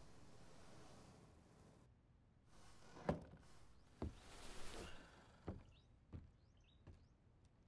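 Faint, dull knocks, about five of them at uneven spacing, with soft rustling between them and a few faint, short, high chirps near the end.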